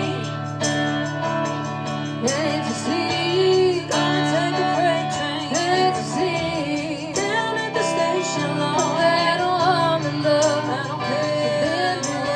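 A band playing a Southern rock song: a bending, wavering lead melody over a steady bed of guitar and bass chords, with no sung words.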